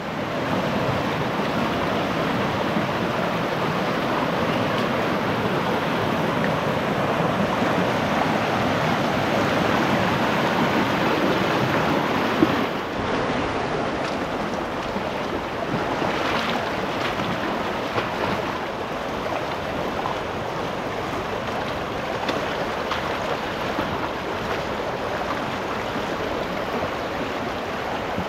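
Mountain creek rushing over stones and small rapids, a steady wash of water. About twelve seconds in it drops to a slightly quieter, calmer flow.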